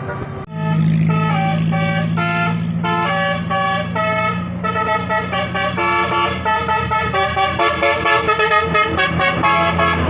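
Bus 'telolet' basuri musical horn playing a quick melody of short, changing notes, over a steady low hum.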